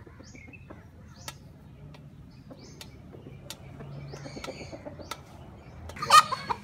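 Hens pecking food from a stainless steel dog bowl: sharp ticks of beaks striking the metal every second or so, among soft high chirps. A brief loud hen call near the end.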